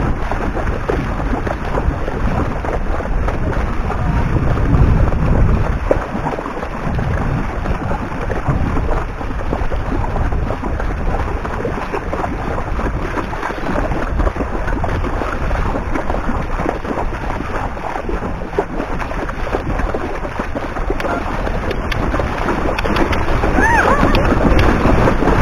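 Steady wind noise on a helmet-mounted camera's microphone, over the splashing of horses' hooves wading through shallow seawater.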